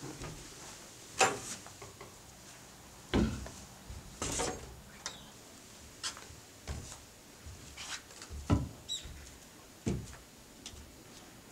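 Slow footsteps in boots on the raised wooden floorboards of a traditional Korean house's veranda: hollow wooden knocks and thuds about once a second, irregular in strength, with light creaks and rubs of the boards.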